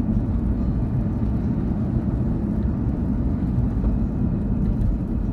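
Steady low rumble of a car cruising at highway speed, heard from inside the cabin: road and engine noise.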